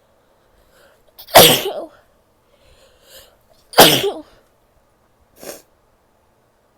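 A woman sneezing loudly twice, about two and a half seconds apart, each with a short intake of breath before it, then a brief, much quieter sound near the end.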